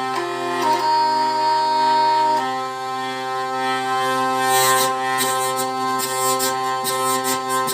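A folk drone instrument plays a melody over a steady, unchanging drone. In the second half, a rapid rhythmic buzzing runs along with the tune.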